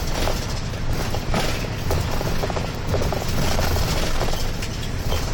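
Inside a moving city bus: the engine runs steadily under road and tyre noise, with short rattles and clicks from the cabin fittings.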